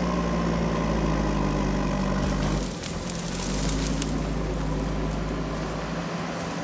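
Diesel engine of a JCB earthmoving machine running steadily; a little under three seconds in its note shifts, with a scatter of short clicks and rattles around that moment.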